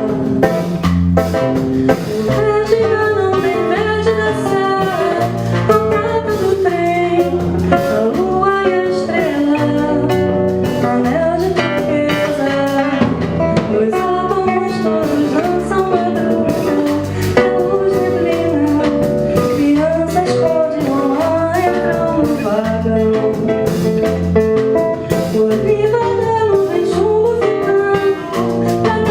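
A small band plays an MPB song: a singer's voice over acoustic guitar, bass guitar and drum kit, at a steady level.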